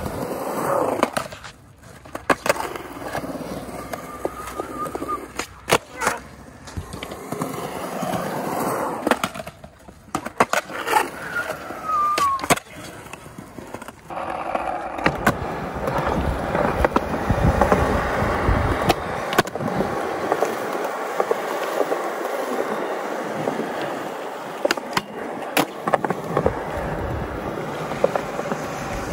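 Skateboard wheels rolling on smooth concrete, a steady rumble, broken now and then by sharp clacks of a board hitting the ground.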